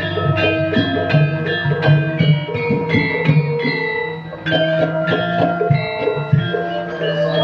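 Live accompaniment music for a ketoprak show, in the style of a Javanese gamelan: a fast, even run of short ringing pitched notes over a steady low tone, with a brief dip in loudness about four and a half seconds in.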